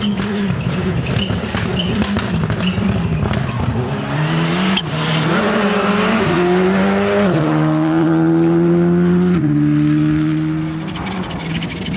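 Rally car engine at full throttle, with sharp exhaust crackles for the first few seconds, then revving up and dropping back in pitch at each upshift. It holds a steady high note for about two seconds before lifting off, about nine and a half seconds in.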